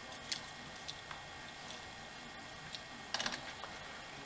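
Faint, scattered light clicks and taps of small plastic parts and rubber fuel line being handled at a Poulan chainsaw's carburetor, with a short cluster of clicks about three seconds in.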